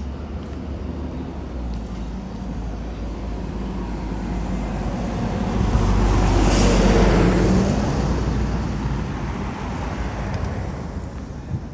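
A motor vehicle passing close by: a low engine rumble and road noise that grow louder to a peak about seven seconds in, then fade away.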